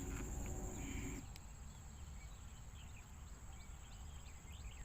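Steady high-pitched insect drone with faint scattered chirps. A low steady hum stops about a second in, and a low rumble runs underneath.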